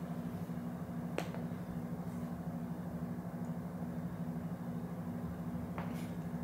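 A steady low hum, with a sharp click, like a finger snap, about a second in and a fainter one near the end.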